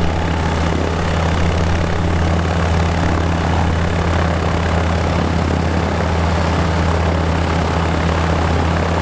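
Light aircraft's propeller engine idling on the ground, a steady low drone that holds the same pitch throughout.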